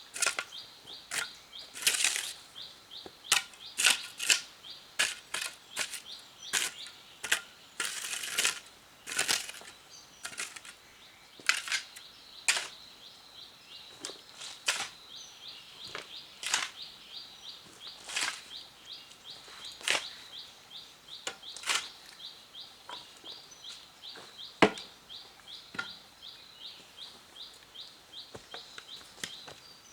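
A string of irregular sharp knocks and scrapes, about one or two a second, with louder strikes now and then, one of the sharpest a little before the end. Behind them a high chirping pulses several times a second throughout.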